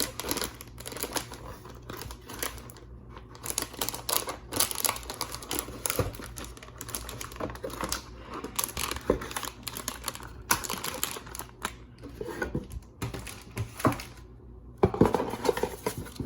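Packaging being handled: a dense, irregular run of small clicks, taps and papery rustles from cardboard, paper and plastic wrapping as contents are taken out of a box.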